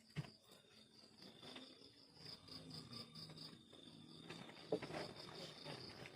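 Crickets chirping in a steady, faint, high pulsing trill, with a couple of soft knocks, the sharpest near the end.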